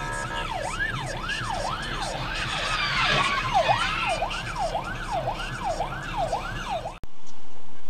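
Police car siren wailing in fast sweeps, rising and falling about twice a second, with a louder, harsher stretch about three seconds in; it cuts off suddenly near the end.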